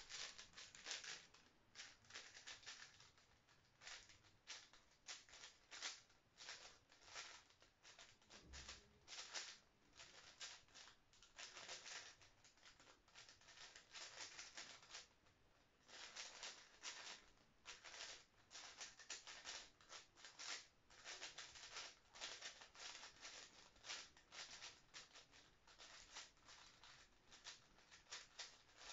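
A 5x5 speed cube being turned fast by hand: faint plastic clicking and clacking of layer turns in quick runs broken by short pauses.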